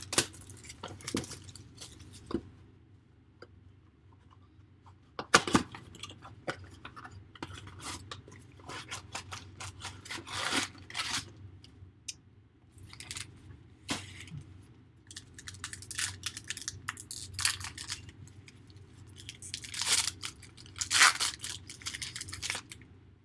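Trading-card box and pack packaging being handled and torn open: wrapper crinkling and rustling with scattered cardboard clicks, a sharp knock about five seconds in, and louder tearing several times, the loudest near the end.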